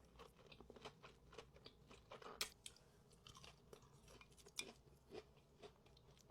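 A person chewing crisp food close to the microphone: soft, wet chewing broken by sharp crunches, the loudest about two and a half seconds in and again a little past four and a half seconds.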